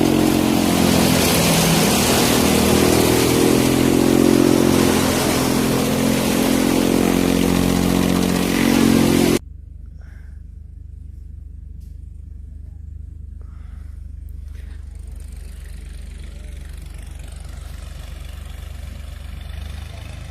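Heavy diesel farm machinery engine running loud and working under load, its pitch rising and falling, until it cuts off abruptly about nine seconds in. After that only a quieter, steady low engine hum is left.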